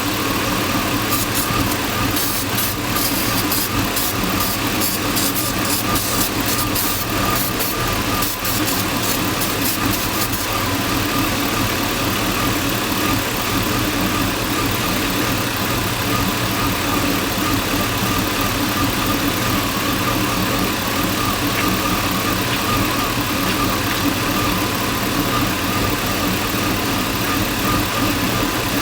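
LS V8 engine swapped into a box Chevy Caprice, idling steadily with a misfire that the owner puts down to a vacuum leak. A rapid light ticking rides over it for about the first ten seconds.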